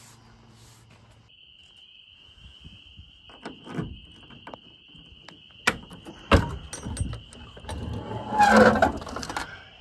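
Key going into and turning in the side storage-compartment lock of a 1970 VW single cab: a run of small metal clicks and knocks, then a louder rattly clatter near the end as the hatch comes open. Crickets chirp steadily behind from about a second in.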